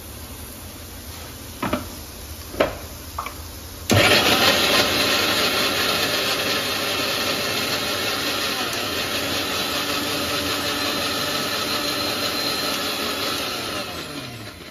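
Sansui mixer grinder grinding chopped tomatoes into a puree in its steel jar. A few knocks as the jar is set on the base, then the motor starts abruptly about four seconds in, runs steadily, and winds down with a falling pitch near the end.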